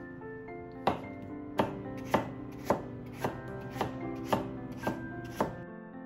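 Kitchen knife slicing a peeled potato on a wooden cutting board: about nine even knife strikes against the board, roughly two a second, stopping shortly before the end. Soft background music plays underneath.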